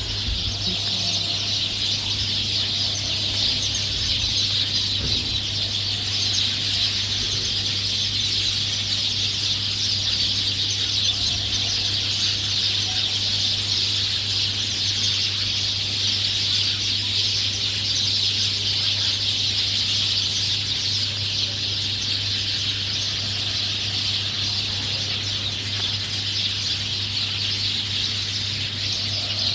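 A dense chorus of many small birds chirping continuously and overlapping, with a steady low hum underneath.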